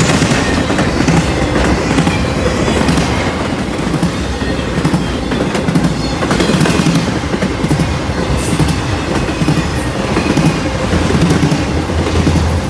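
BNSF intermodal freight train rolling past on the near track, TTX flatcars carrying highway trailers: a steady rumble of steel wheels on rail with repeated clickety-clack as the wheel sets cross rail joints.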